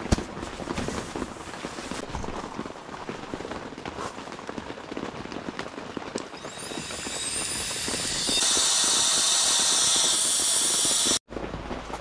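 Rain pattering steadily with a crackle of small clicks. About six seconds in a hiss sweeps up in pitch and swells into a loud, even whoosh that cuts off suddenly near the end.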